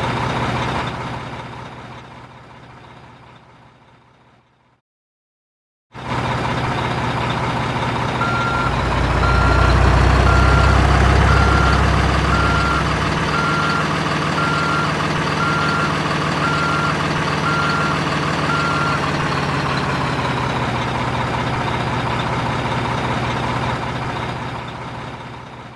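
Diesel truck engine running, fading out over the first few seconds; after a second of silence it cuts back in and grows louder while a reversing beeper sounds about once a second for roughly ten seconds, then the engine fades out near the end.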